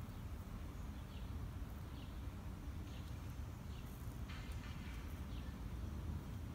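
A bird giving short, high chirps that fall in pitch, repeating about once a second, over a low steady rumble.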